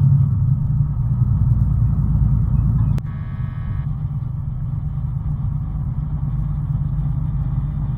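Steady low rumble of engine and road noise heard from inside a moving vehicle's cab. The sound cuts abruptly about three seconds in, and a brief faint high tone follows, then the rumble carries on.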